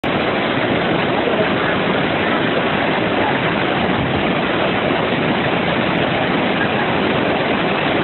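Waterfall's falling water rushing steadily and loudly.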